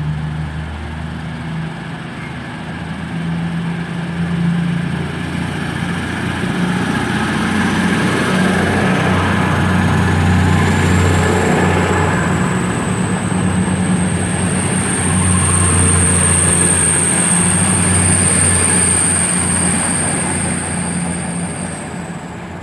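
Class 222 Meridian diesel-electric multiple unit pulling away from the platform, its underfloor diesel engines running under power. The sound grows louder toward the middle and fades near the end, with a high whine that rises in pitch from about halfway through.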